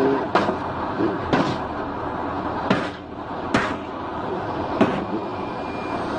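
Five sharp knocks about a second apart over a steady rushing noise.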